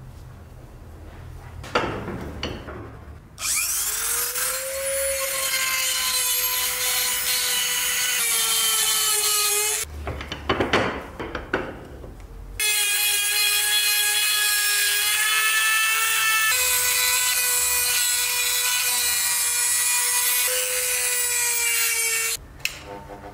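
Handheld rotary tool with an abrasive grinding stone grinding rust off a steel axe head. Its high motor whine rises as it spins up about three and a half seconds in, then runs steady, dipping in pitch as the stone bites. Near the middle it stops for a few seconds of irregular scraping by hand, then the rotary tool runs again.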